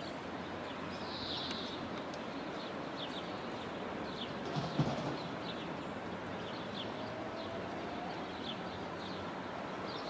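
River water rushing steadily over shallow rapids, with short high bird chirps repeating every half second or so and a brief low bump about five seconds in.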